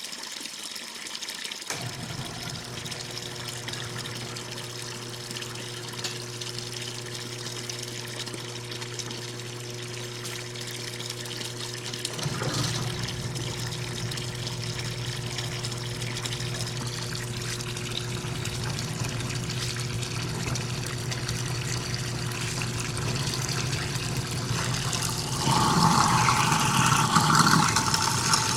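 Kitchen garbage disposal with tap water running into the sink. The motor comes on with a steady hum about two seconds in. The sound grows louder and rougher about twelve seconds in, and louder again near the end.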